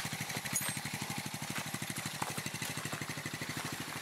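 Small single-cylinder four-stroke engine of a powered drift trike idling, with a quick, even exhaust beat of about a dozen pulses a second and no revving.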